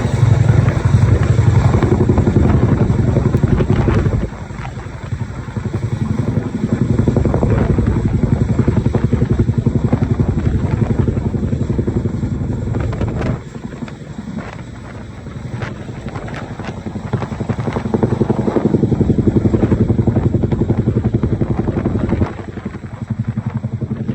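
Boeing CH-47 Chinook tandem-rotor helicopter running nearby, its rotors giving a fast steady chop that grows louder and quieter several times as it works overhead.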